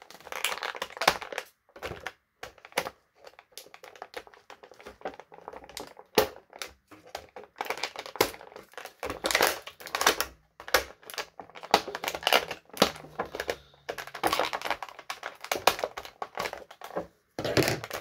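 Plastic action-figure packaging crinkling and clicking in irregular bursts as the figure is worked free of its plastic tray.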